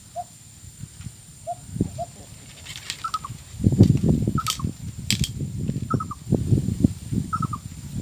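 A bird repeating a short, quick chirping call about every second and a half, over low rustling and handling noise that grows louder about halfway through, with two sharp clicks.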